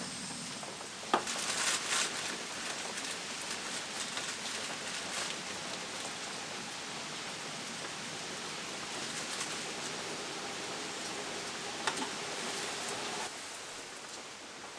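Steady rain falling, an even hiss of drops, with a sharp tap about a second in and another near twelve seconds; it gets quieter just before the end.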